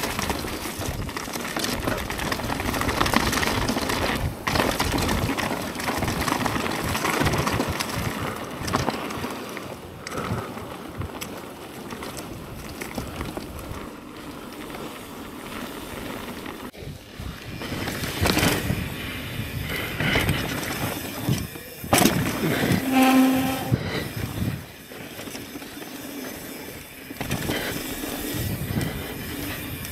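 Mountain bike being ridden over a dirt trail: steady rushing tyre and wind noise with frequent knocks and rattles from the bike over rough ground. About two-thirds of the way through comes a brief pitched squeal.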